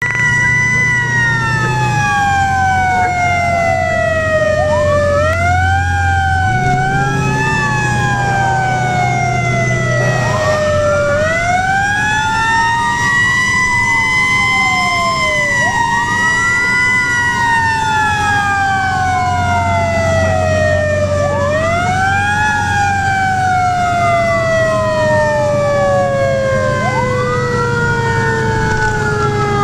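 Fire engine siren heard from inside the cab, wound up again and again: each rise is quick and each fall a long, slow glide down. Underneath is the truck's steady engine drone, which changes pitch a few times.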